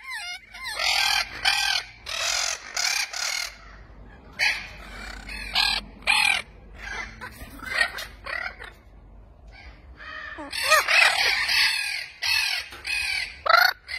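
Spix's macaws calling: harsh, raspy screeches in repeated bursts, with a short lull about two-thirds of the way through.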